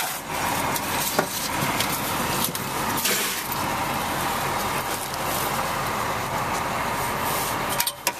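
An engine running steadily, with a sharp click about a second in.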